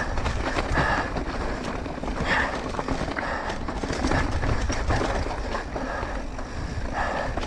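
Mountain bike riding fast down a dirt trail: tyres rolling over dirt and rocks with a steady low rumble and many small knocks and rattles from the bike.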